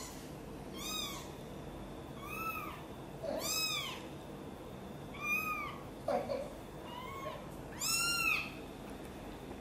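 Tiny ginger kitten mewing repeatedly: about seven high-pitched calls, each rising then falling, roughly one every second or so.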